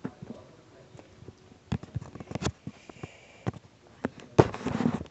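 Handling noise from a handheld camera being moved and turned around: a series of sharp knocks and clicks, with a louder, denser rustling cluster near the end.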